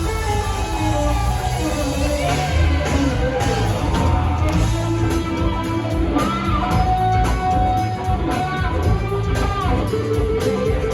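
Live rock band playing an instrumental jam, with an electric guitar lead bending notes over bass and drums, heard in a loud audience recording.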